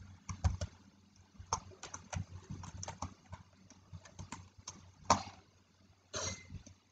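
Computer keyboard typing: quiet, irregular key clicks, with a louder click about five seconds in and a short rustle near the end.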